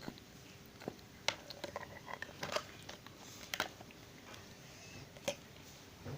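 Irregular light clicks, taps and small wet squishes from handling and mixing white glue with a little water in a container.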